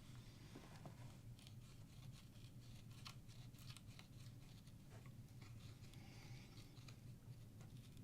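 Near silence: a low steady hum with faint scattered light clicks and scratches.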